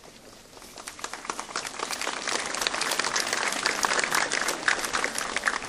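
Audience applauding, the clapping starting about a second in and swelling louder.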